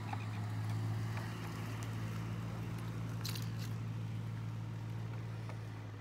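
Steady low hum of an idling vehicle engine, with a brief clatter about three seconds in as a battery pack of 18650 cells is handled on the scooter.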